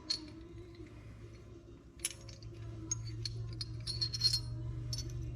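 Light metallic clinks and taps of small steel engine parts and tools being handled while assembling a Honda CR500 engine's gearbox internals, loudest about four seconds in, over a steady low hum.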